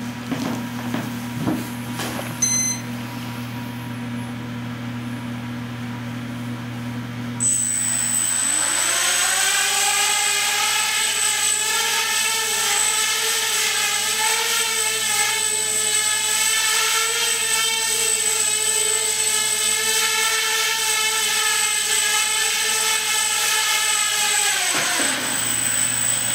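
Small scratch-built 250mm tricopter's three electric motors and propellers starting about seven seconds in, their pitch rising as they spin up. They run with a steady buzz and a thin high whine while it flies, then wind down and stop near the end.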